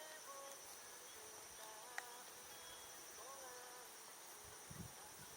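Faint outdoor fire: a sharp crackle about two seconds in and a few brief whistles among steady high insect trilling that keeps up throughout.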